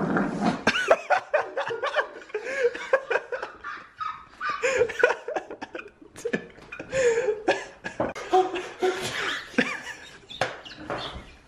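A man laughing hard in long fits, his voice wavering up and down, with short breaks between fits.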